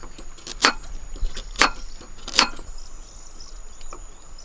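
Three sharp chopping strokes of a blade into wood, about a second apart.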